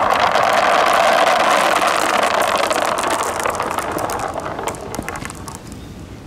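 Dozens of marbles rolling together down a corrugated wave slope and across a board: a dense clatter of many small clicks. It is loudest about a second in, then thins out over the next few seconds to a few separate clicks as the marbles come to rest.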